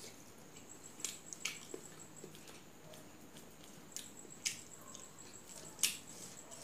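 Close-up eating sounds: wet chewing and lip smacks from someone eating fish curry by hand, a few short sharp smacks spread out, the loudest near the end.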